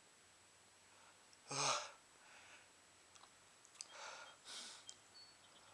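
A man breathing through an irritated nose: a short breath out with a little voice in it about one and a half seconds in, then softer breaths near the end, with a few faint clicks. A sneeze is building after he sniffed sneezing powder.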